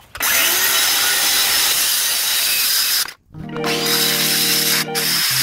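Cordless DeWalt circular saw with a masonry blade cutting through stucco, a loud steady grinding whir for about three seconds that cuts off abruptly. Music with steady held notes comes in a moment later.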